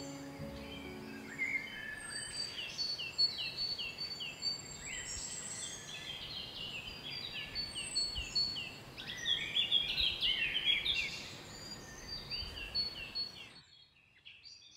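Several forest songbirds singing and calling over a faint hiss: quick runs of short chirps and a thin high whistle repeated again and again. The birdsong cuts off abruptly shortly before the end.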